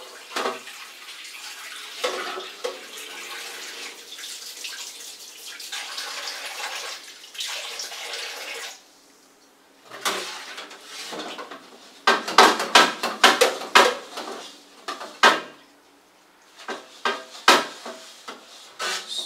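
Kitchen tap running into a stainless steel sink while a wok is washed out, the water stopping abruptly about nine seconds in. Then a run of sharp clattering knocks of metal cookware and dishes, thickest and loudest a few seconds after the water stops.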